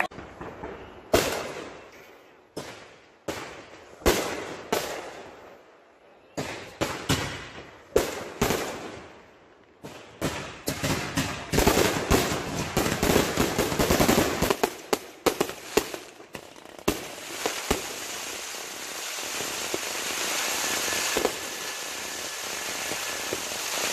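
Fireworks finale: sharp bangs of bursting shells, first a second or so apart, then coming faster and faster. About two-thirds of the way through they give way to a dense, continuous crackling, with a few bangs still on top.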